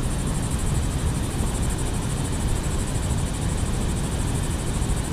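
Steady rushing of water pouring through the open dam spillway gates, an even unbroken noise.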